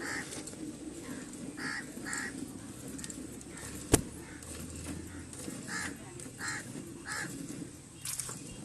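Short, harsh bird calls, like the cawing of crows, repeated several times at irregular intervals, with one sharp knock about four seconds in.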